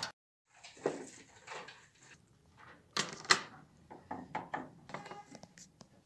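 Handling noise of a power cable being plugged into the back of a BenQ DLP projector: scattered clicks, knocks and rustles, the two sharpest close together about three seconds in.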